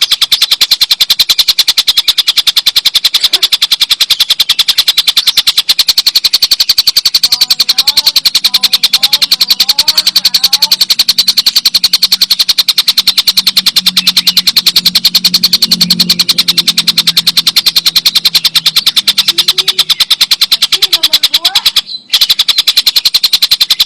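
Tengkek buto kingfisher giving its long, loud chattering 'ngekek' call, a fast run of sharp 'kek' notes at about ten a second, with a brief break near the end.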